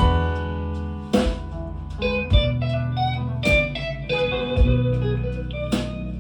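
Blues music with plucked guitar over a low bass line and drum hits about once a second, played back through a pair of Dynaudio Special 40 bookshelf speakers.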